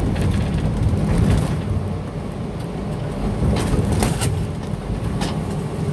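Inside a semi-truck cab at highway speed: the diesel engine runs steadily under road noise. Several sharp jolts and rattles, a cluster in the first second and again about four and five seconds in, come from the truck hitting uneven bridge joints where the bridge doesn't meet the road smoothly.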